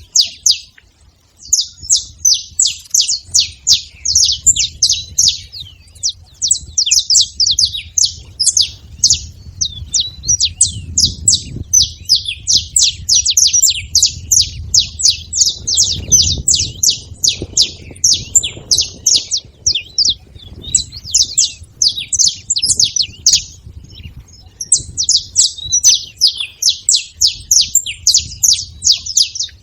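Several saffron finches chirping and singing together in fast, dense runs of high notes, broken by a few brief pauses.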